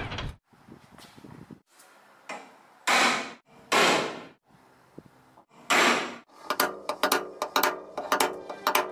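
Hammer blows from underneath against a pickup's steel bed wheel well, knocking the dents out: three heavy strikes a second or so apart, then a quicker run of lighter, ringing knocks near the end.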